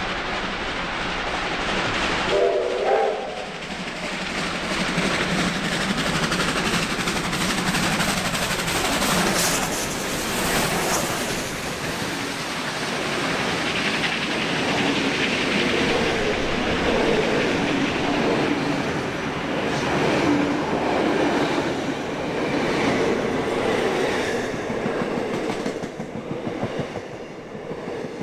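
Train hauled by two R-class steam locomotives running through a station at speed, with a short whistle blast about two and a half seconds in. Then the steady clickety-clack of its heritage passenger carriages rolling past, getting quieter and less even near the end.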